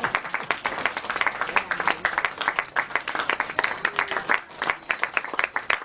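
Audience applauding, many hands clapping unevenly.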